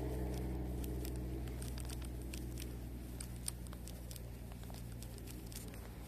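Baitcasting reel being cranked to wind in the lure: faint irregular clicks and crackles over a steady low hum.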